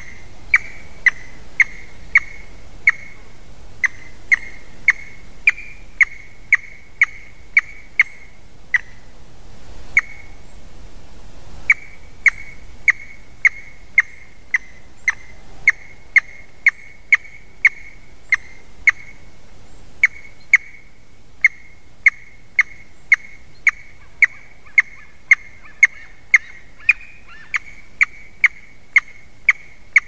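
Eaglet calling over and over: short, sharp calls at about two a second, with a brief pause about ten seconds in.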